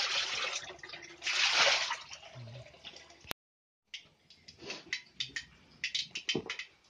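Water poured from a jug splashing into a plastic basin twice, about a second apart, as snail meat is rinsed in it by hand. After a brief break, a scatter of light clicks and taps.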